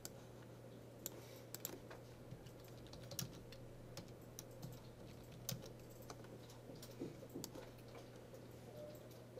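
Computer keyboard typing: scattered keystrokes in short, irregular runs, over a faint steady hum.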